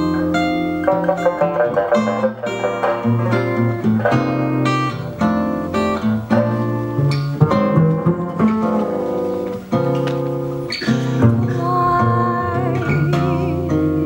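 Small jazz ensemble playing: plucked Chinese sanxian lute, acoustic guitar and pizzicato double bass, with many short plucked notes over a walking bass line.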